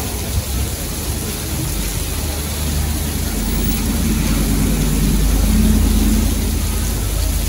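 Tropical-storm downpour hissing steadily on the street. Vehicles drive past on the wet road, their engine and tyre noise building to its loudest about six seconds in, then easing.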